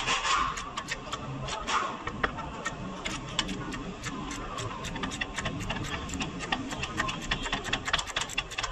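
Irregular sharp clicks and light metallic taps of hand tools at work on the truck's suspension, coming a little more often near the end.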